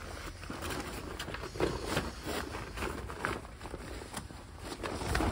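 Rustling and handling of a fabric car cover being pulled back, with irregular shuffling footsteps and a few soft knocks.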